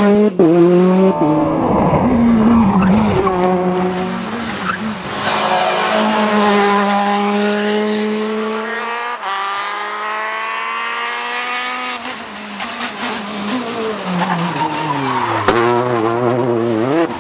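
Rally car engines at full throttle, the pitch climbing hard through the revs and dropping sharply at each gear change, then falling away under braking before picking up again. The sound breaks off abruptly a few times as one car gives way to the next.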